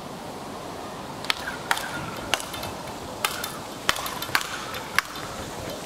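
Rackets striking a speedball, the ball tethered to a central pole, in a fast rally: about seven sharp hits at uneven gaps of half a second to a second, starting about a second in.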